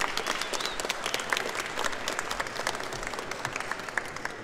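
A small crowd applauding, many hands clapping in a dense, irregular patter.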